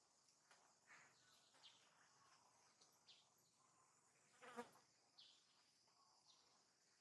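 Near silence: faint outdoor ambience with a steady high insect hum and scattered short, faint chirps. One slightly louder, wavering call comes about four and a half seconds in.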